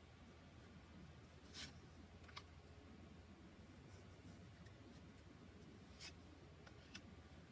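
Near silence with a few faint, short swishes and light taps of oracle cards being handled, the clearest about a second and a half in and again about six seconds in.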